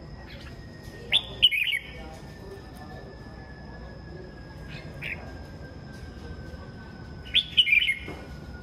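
Red-whiskered bulbuls singing: two short, loud song phrases, one about a second in and one near the end, with a single short call between them.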